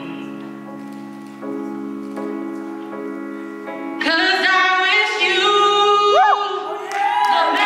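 A woman sings solo into a microphone over a slow backing track of held chords. For the first four seconds the chords play alone, changing every second or so. Then her voice comes in loud on long held notes, with a quick rise and fall in pitch near the end.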